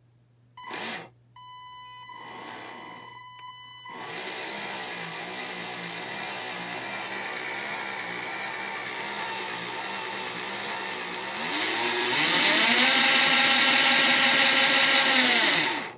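A 540-size brushed electric motor driving an old drill's gearbox and chuck through a brushed ESC. It starts with a high whine at low throttle, then turns slowly with a steady whirr of the gears. About three quarters of the way through it rises in pitch and gets louder as it is run up to full speed, then stops abruptly.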